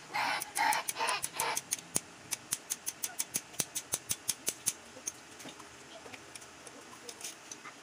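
A run of sharp metallic clicks, about four or five a second, from a welding machine's spring-loaded earth clamp and cable being handled and clamped onto a metal part. The clicks thin out about five seconds in, after a second and a half of rustling handling noise at the start.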